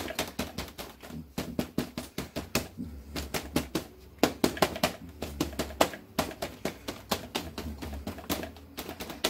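Crumpled paper towel being patted and rubbed over wet acrylic paint on watercolor paper: quick, irregular dabbing taps, several a second.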